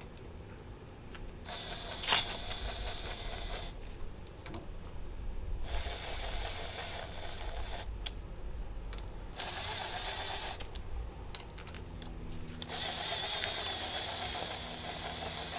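Bolts being run down with a tool in about four bursts of one to three seconds each, with a mechanical ratcheting rattle and short pauses between them.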